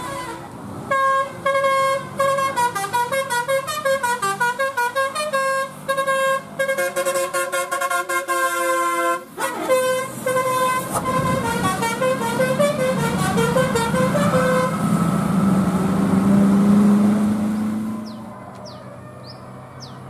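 Multi-tone telolet horn on a Hino RN285 tour bus playing a quick, bouncing melody of short notes for about thirteen seconds. The bus's engine then grows louder as it passes and cuts off suddenly near the end.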